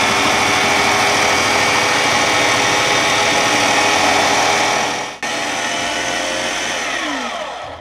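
Food processor motor running with its grating disc shredding zucchini, a loud steady whine under the grinding of the zucchini pushed through the chute. It breaks off briefly about five seconds in, and near the end the motor winds down with a falling pitch.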